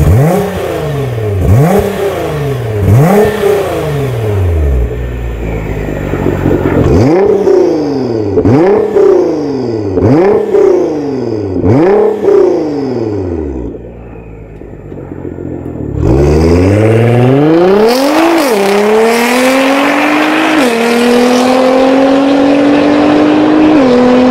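Nissan GT-R R35's twin-turbo V6 through an Armytrix valvetronic exhaust with the valves closed ('sound off' mode), free-revved in quick blips about every second and a half. It settles to idle briefly, then pulls away hard, the pitch climbing through two upshifts.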